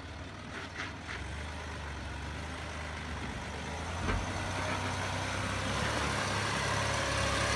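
Land Rover Discovery 4 engine running at low revs as the 4WD crawls through a rut, slowly growing louder as it comes close, with a single thud about four seconds in.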